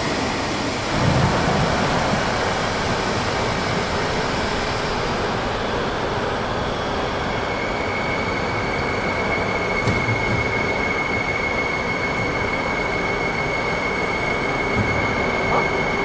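CNC sheet-metal folding machine running, a steady mechanical noise with a few low knocks. A steady high whine comes in about halfway through.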